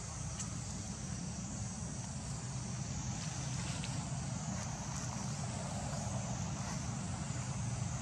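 Steady low rumble of a distant engine, growing slightly louder, with a high, wavering drone of insects above it.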